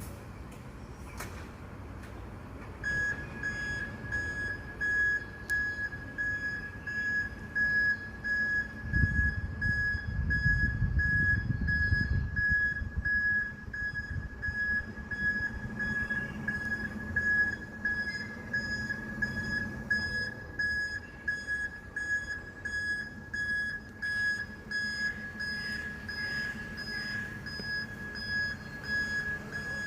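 Garbage truck's reversing alarm sounding a high, steadily repeated beep, which starts a few seconds in, over the low rumble of the truck's engine that swells for a few seconds about a third of the way in.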